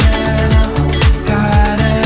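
Background music with a steady beat of deep bass-drum hits.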